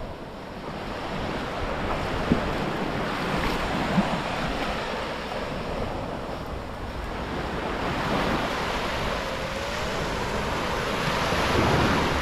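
Sea waves breaking and washing up a sandy beach, the surf swelling louder a few times, with wind buffeting the microphone. Two short clicks about two and four seconds in.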